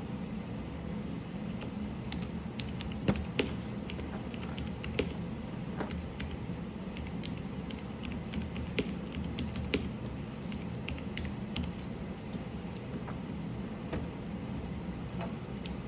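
Mechanical keyboard being typed on: irregular, uneven key presses with sharp clicks, a few strikes louder than the rest. A steady low hum runs underneath.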